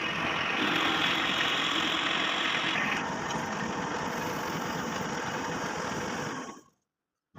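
Manual lathe running during thread cutting, a steady dense machine noise that cuts in suddenly and fades away near the end.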